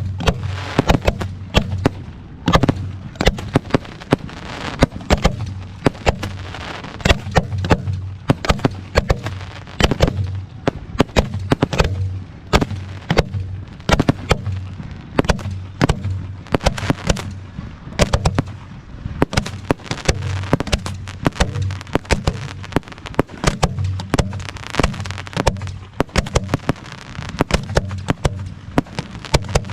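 Aerial fireworks show going off: a dense run of sharp bangs and crackles, several a second.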